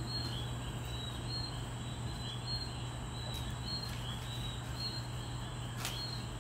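Night-time outdoor chorus of short, high, rising chirps repeating every second or so over a steady low hum, with a faint click near the end.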